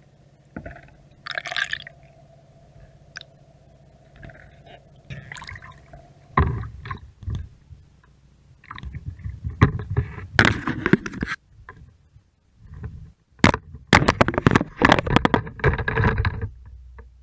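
Underwater camera housing being pulled up through the water: faint muffled water noise at first, then, about six seconds in, loud splashing and sloshing as it breaks the surface. Sharp knocks and scraping follow as the housing is lifted out and handled.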